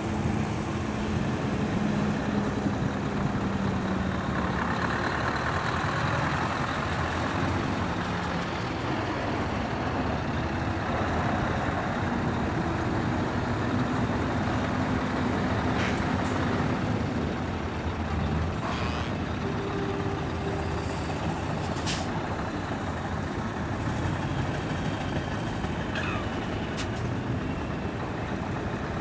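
Heavy trucks' diesel engines running at low speed as they pull in, a steady mechanical rumble throughout. A few short, sharp air hisses, like air brakes, come in the second half.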